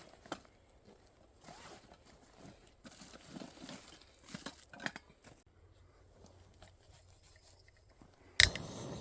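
Footsteps crunching irregularly on dry leaves and twigs of the forest floor, fading after about five seconds. Near the end comes a sharp loud click, followed at once by a steady rushing noise.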